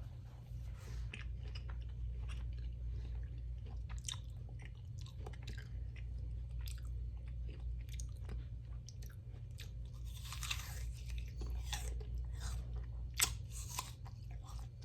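Close-miked chewing and crunching of food, with scattered small crunches and mouth clicks. A denser burst of crackling comes about ten seconds in, and one sharp crunch a few seconds later.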